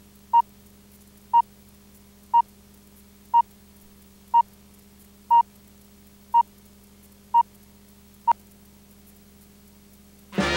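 Countdown beeps from a commercial's tape slate: a short steady tone once a second, nine in all, over a faint low hum. The beeps stop about eight seconds in, and swing music with brass starts right at the end.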